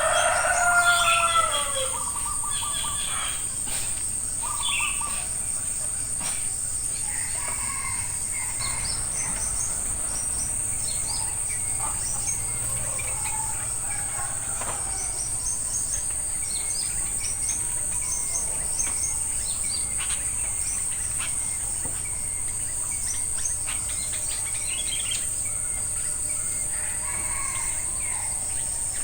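A rooster crowing in the first two seconds, then small birds chirping and calling on and off over a steady high-pitched insect drone.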